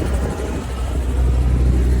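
Robinson R44 helicopter running, a steady low rumble from its piston engine and rotor.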